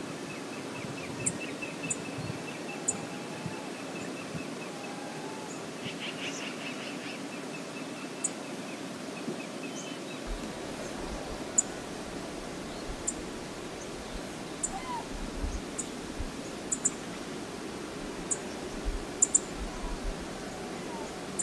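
Steady rush of flowing river water, with faint bird calls in the first half and scattered faint clicks.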